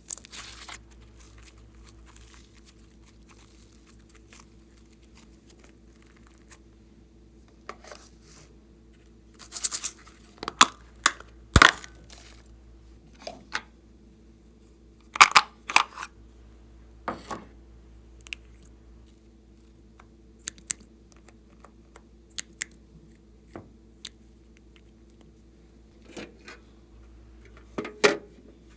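Slime and mixing materials being handled, heard as scattered sticky crackles, pops and sharp clicks coming irregularly, some in quick clusters, over a faint steady hum.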